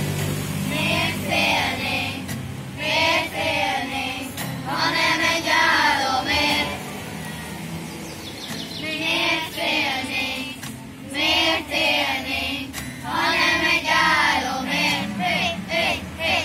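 A group of schoolchildren singing together in short phrases with brief gaps between them, accompanied by an acoustic guitar.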